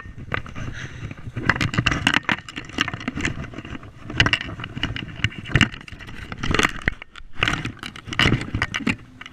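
Footsteps through long grass, with clothing and hands brushing against a body-worn camera: irregular rustles, scuffs and thumps.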